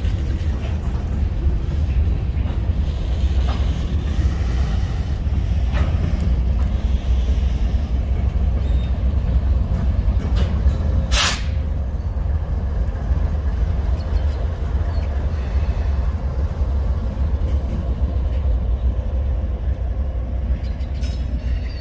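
Freight train of covered hopper cars rolling past, a steady low rumble of wheels on rail, with the rear distributed-power diesel locomotive going by about halfway through. A brief sharp hiss sounds just as the locomotive passes.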